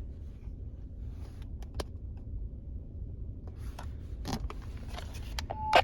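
Handheld walkie-talkies being handled: a few sharp clicks of knobs and switches over a low steady rumble, with a short steady beep just before a last click near the end.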